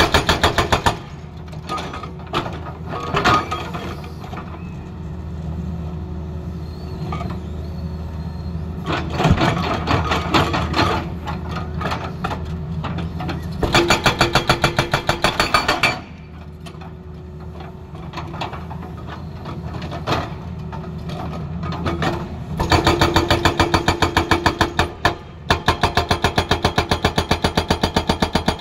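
Tata Hitachi excavator's hydraulic rock breaker hammering boulders in rapid bursts of a few seconds each, with the excavator's engine running steadily between the bursts.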